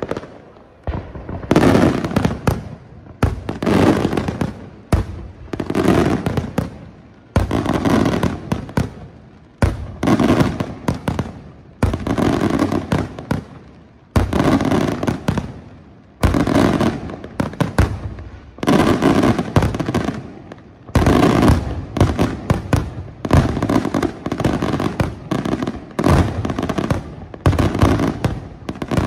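Aerial firework shells launching and bursting in quick succession, a loud boom about every one to two seconds, each one followed by a rapid run of smaller reports and fading over about a second.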